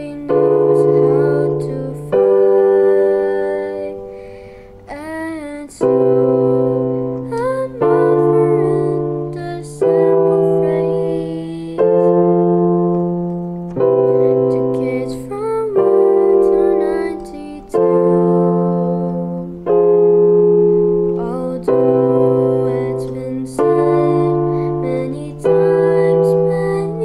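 Electronic keyboard playing a slow piece in held chords over low bass notes, a new chord struck about every two seconds and fading before the next.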